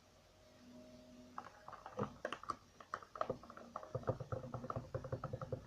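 Quick, irregular clicks and taps of utensils and plastic containers being handled on a table. They start about a second and a half in and grow denser, with duller knocks near the end.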